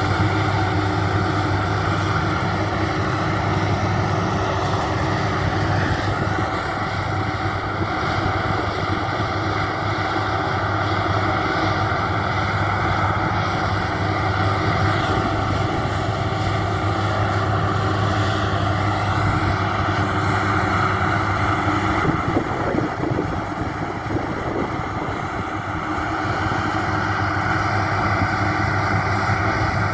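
Maxxi Bimo 102 rice combine harvester running steadily while harvesting, a constant engine hum with the whir and rattle of its threshing machinery. The level eases slightly for a few seconds about two-thirds through, then picks up again.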